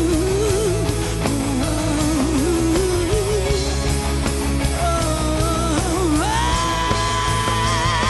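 Live rock band playing, with electric guitar and a male singer. About six seconds in, the melody slides up to a long high note held with vibrato.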